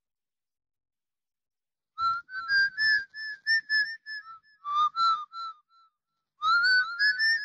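A person whistling a wavering tune in short, separate notes, starting about two seconds in and coming in three brief phrases.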